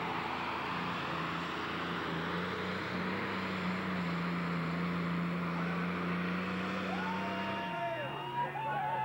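A 12-cylinder Deutz diesel pulling tractor (19.8 litres, 420 hp) running flat out under load as it pulls the sled, holding a steady, slightly rising note. About eight seconds in it drops to a lower note as the engine comes off power.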